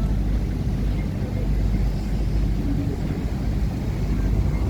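River passenger boat's engine running steadily under way, a constant low rumble.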